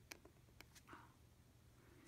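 Faint scratching and ticking of a flexible pointed calligraphy nib on paper as drill strokes are drawn, with a few light ticks and a short scratch about a second in.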